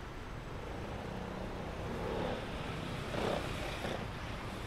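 Cars passing close by on a city street, their tyre and engine noise swelling as each goes by, loudest about three seconds in, over a steady low traffic rumble.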